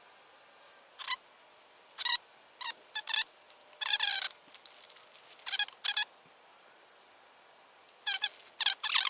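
Fast-forwarded audio: short bursts of high-pitched, chipmunk-like sped-up voice, in quick chirps separated by quiet gaps, with a dense cluster of bursts about four seconds in and again near the end.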